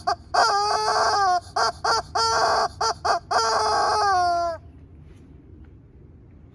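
Squeaky rubber chicken toy squeezed over and over: a run of short squeaks and three long squawks that drop in pitch as they end, stopping a little over halfway through.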